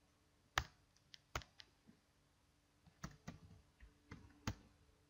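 Computer keyboard keys clicking as code is typed: irregular single keystrokes, with a quick cluster about three seconds in, over a faint steady hum.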